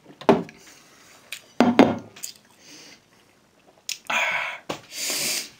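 Dishes knocked down on a tabletop a few times in the first two seconds, then two loud, breathy exhales about four and five seconds in, the heavy breathing of someone who has just wolfed down food and milk.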